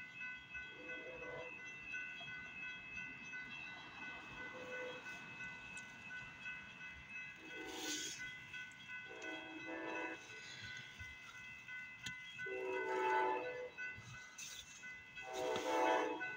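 A train horn sounding the grade-crossing signal in the second half: two long blasts, a short one, then a long one. Under it a steady ringing runs throughout, likely the crossing signal's bell.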